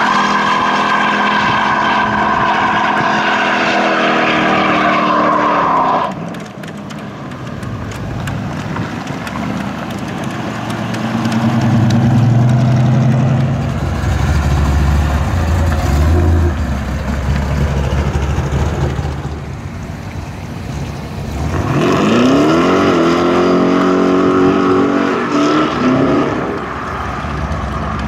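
American muscle car engines: one held at high revs in a burnout, cutting off suddenly about six seconds in; then a deep, low rumble from a car rolling slowly past; and near the end an engine revving up in rising pitch as the car accelerates away.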